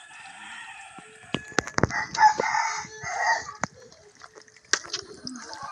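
A drawn-out animal call lasting about a second and a half, starting about two seconds in, with a few sharp knocks just before it and another near the end.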